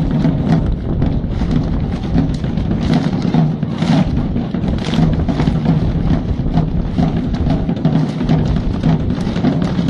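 Field drums of a flag-throwing troupe's drum corps playing a continuous, driving rhythm.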